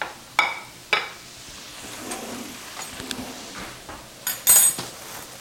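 Metal kitchen utensils clinking on a countertop: three sharp ringing clinks in the first second, then a louder metallic clatter about four and a half seconds in.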